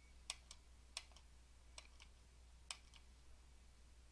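Computer mouse button clicking four times, about a second apart, each a sharper press followed closely by a lighter release, over a faint low steady hum.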